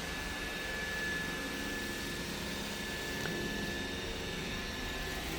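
Roomba robot vacuums running, a steady whir with a thin, steady high whine over it.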